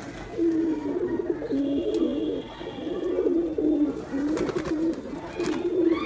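Domestic pigeons cooing: low, wavering coos repeated one after another and overlapping, with hardly a pause. A few faint clicks come about four and a half seconds in.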